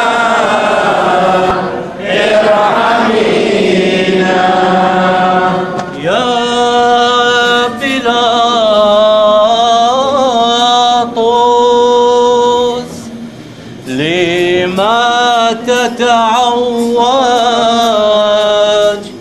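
Liturgical chanting of a Syriac Catholic Good Friday hymn: long, ornamented sung lines on held notes, with a short break about thirteen seconds in.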